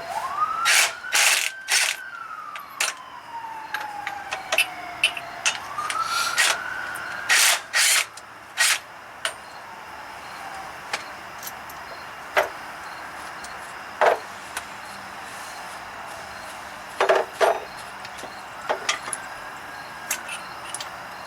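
Hand tools and metal parts clanking and knocking in irregular sharp hits as a pump mount is unbolted. A pitched wail that rises, holds and falls slowly sounds behind them near the start, again about six seconds in, and near the end.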